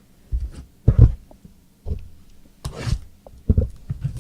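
A handful of dull, low thumps and knocks at irregular intervals, about five in all, from cards and packs being handled and set down on the table.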